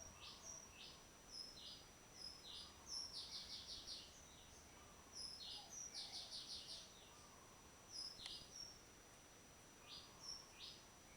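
Birds chirping faintly: short, high chirps scattered irregularly, with two quick trills of five or six notes in the first half.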